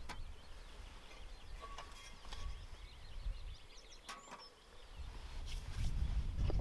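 Birds chirping and singing in woodland, many small overlapping calls. A low rumble fades out at the start and returns about five seconds in, with a few sharp clicks.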